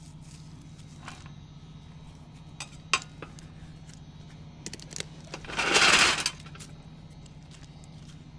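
Hands and tools working through brush: scattered sharp clicks and clinks, then a loud burst of rustling noise lasting under a second about six seconds in.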